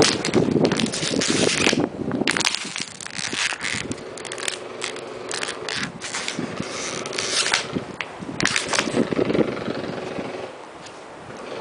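Empty plastic water bottle being twisted tight with its cap on, the thin plastic crackling and crinkling in irregular bursts as the air inside is squeezed. The crackling dies down about ten and a half seconds in.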